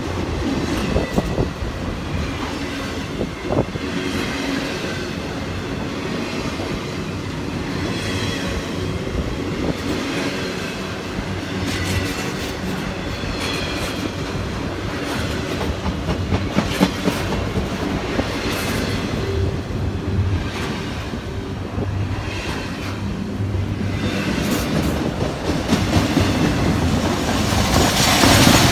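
Intermodal freight train cars rolling past, with a steady rattle and clickety-clack of wheels over the rail joints and a faint squeal at times. The sound swells louder near the end.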